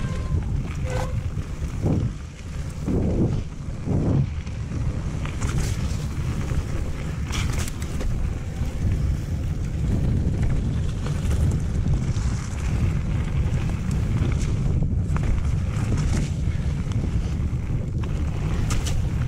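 Wind buffeting the microphone as a Haibike Nduro e-mountain bike rolls fast down a wet gravel trail. The low rumble runs steadily, broken by short clatters from the tyres and the bike over loose stones.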